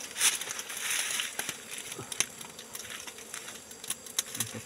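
Wild bees buzzing at a ground nest that is being smoked for honey. A burst of hissing noise comes shortly after the start, and there are scattered short clicks and snaps throughout.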